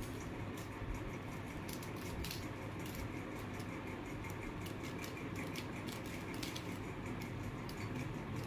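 Plastic mirror cube being turned by hand: irregular light clicks and clacks as its layers rotate, over a steady low background noise.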